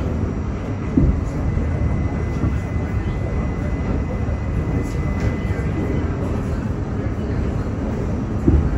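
R68 subway car running through a tunnel, heard from inside the car: a steady rumble and rattle. Two louder knocks come about a second in and near the end, and a thin high tone fades out about six seconds in.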